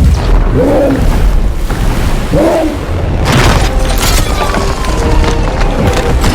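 Film score over deep booming impacts and low rumbling destruction effects, with a sharp crash about three seconds in.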